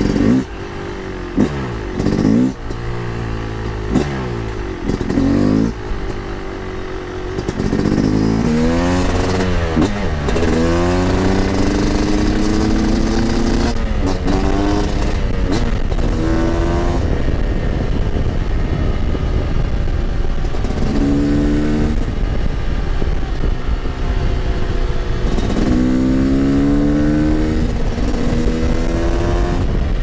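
Yamaha YZ250's single-cylinder two-stroke engine being ridden: short blips of the throttle for the first several seconds, then louder running as the bike accelerates, the revs climbing and dropping back repeatedly.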